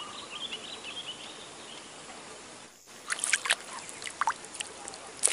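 Light water splashes and trickling at the surface around a wader fishing with a long pole, starting about three seconds in as the pole is lifted, after a stretch of faint outdoor background with thin high chirps.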